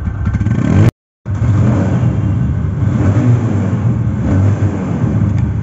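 TVS Apache RTR 160 motorcycle's 160 cc single-cylinder four-stroke engine running steadily at low revs. About a second in, the sound cuts out completely for about a third of a second, then the engine carries on.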